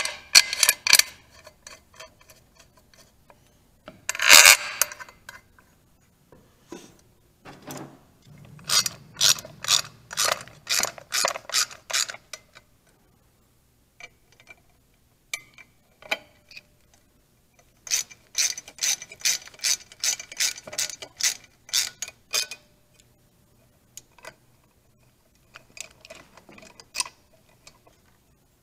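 Hand socket ratchet clicking as Allen bolts are run into a motorcycle sprocket cover, in two long runs of steady clicks about three a second. There are two louder metallic clatters near the start.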